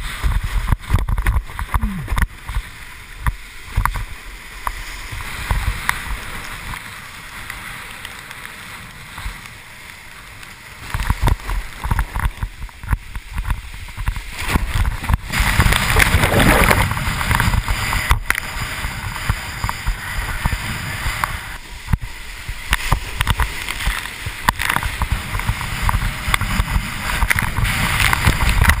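Wind buffeting the microphone of an action camera on a windsurf rig, with water rushing and splashing past the board at speed. It is quieter for a few seconds early on, then grows louder and choppier, with the heaviest rush of spray about halfway through.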